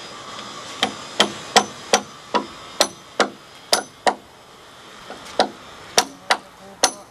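Hammer blows as the wooden roof beams are fixed: a run of about nine even strikes, a little over two a second, a short pause about four seconds in, then a few more strikes.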